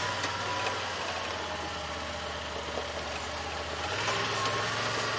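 A vehicle engine running steadily. Its note drops a little about half a second in and rises again about four seconds in.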